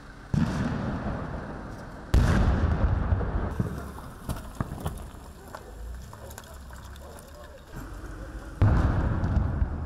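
Three sudden loud bangs, about a second in, two seconds in and near the end, each rumbling away over a second or two, with scattered smaller pops and cracks in between.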